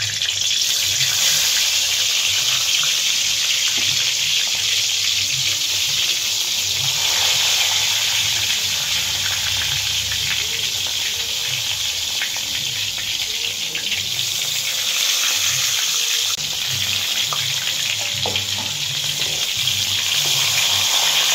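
Steady, loud sizzling of hot oil in a kadai as brinjal slices coated in turmeric, salt and chilli powder fry in it, more slices being laid into the pan.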